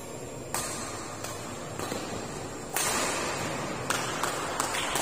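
Badminton rally: a shuttlecock struck by rackets three times in quick succession, sharp cracks about two-thirds of a second apart. A little past halfway, as the point ends, a sudden burst of shouting and cheering starts, with a few scattered sharp claps.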